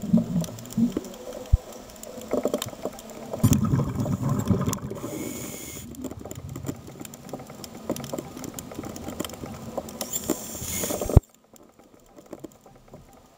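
A scuba diver's regulator breathing, heard underwater: surges of exhaled bubbles rumble low, alternating with a hissing inhale, with scattered small clicks throughout. The sound drops away abruptly about eleven seconds in.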